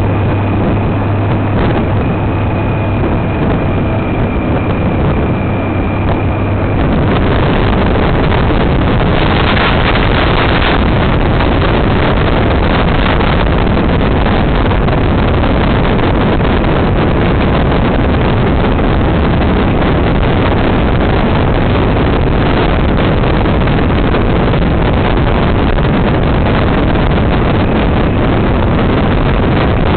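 Honda Gold Wing motorcycle riding at speed: a steady engine hum under rushing wind, then, about seven seconds in, louder wind noise buffeting the microphone drowns it out.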